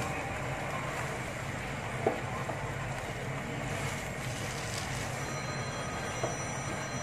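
Fried noodles and vegetables stir-frying in a wok: a steady sizzle with a wooden spatula turning and scraping the noodles, and a sharp knock of the spatula on the pan about two seconds in.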